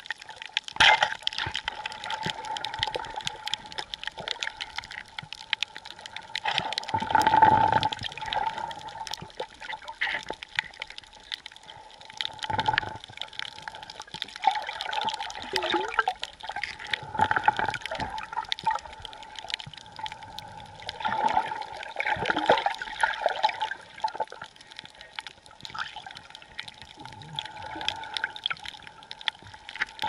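Underwater sound heard by a submerged camera: water rushing and sloshing in uneven swells, the loudest about seven seconds in, over a steady fine crackle of many small clicks.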